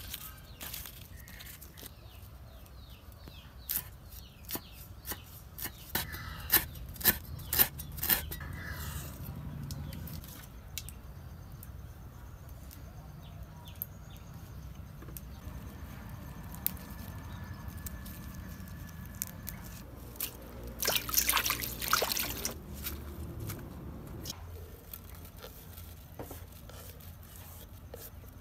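Hand preparation of fresh herbs on a wooden chopping board: a run of sharp knocks of a knife on the board, light rustling of leaves, and a louder burst of rustling and scraping about three-quarters of the way through.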